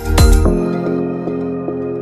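Background music: a light electronic track whose drum hits stop about half a second in, leaving soft held chords.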